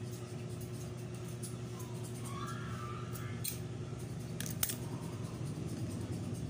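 Barber's scissors snipping hair in quick light clicks, with a sharper click about four and a half seconds in, over a steady low hum.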